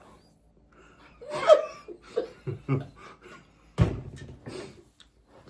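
Laughter in a series of short bursts, loudest about a second and a half in. A single sharp knock comes about four seconds in.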